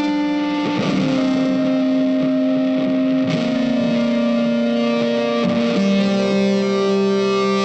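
Background music: guitar with effects, long held notes changing every second or two, with strummed chords about a second in, near the middle and a little past halfway.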